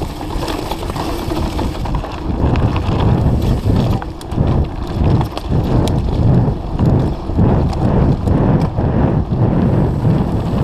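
Mountain bike ridden fast down a dirt trail: tyres rumbling over the ground and the bike knocking and rattling over bumps in an uneven, thudding rhythm, with wind on the microphone.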